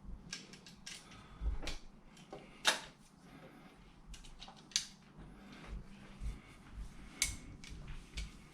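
Scattered small clicks and taps from a screwdriver and a wire being worked into the terminals of a light-switch plate, the sharpest click nearly three seconds in.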